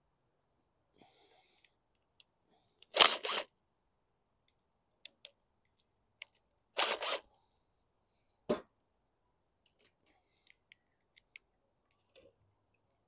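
Small mower parts handled on a workbench: scattered light clicks and taps, with two short, loud rushing bursts about three and a half seconds apart and a duller knock soon after the second.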